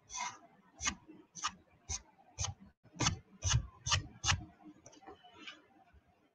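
Clicking at a computer: about nine sharp clicks at roughly two a second, with a couple of fainter ones near the end.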